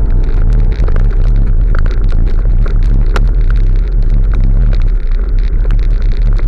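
Loud, steady low rumble of wind and road noise from riding a bicycle, with scattered sharp clicks.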